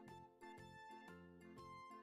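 Faint background music: a gentle melody of short, evenly paced pitched notes over a soft bass line.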